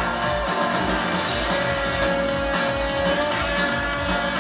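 Live band music with a guitar playing a break, with no vocals, over a steady beat; a note is held for about a second and a half in the middle.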